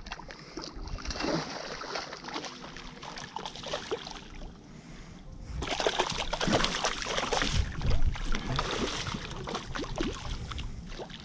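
A hooked snook thrashing at the surface, water splashing and sloshing in quick irregular bursts, louder about halfway through.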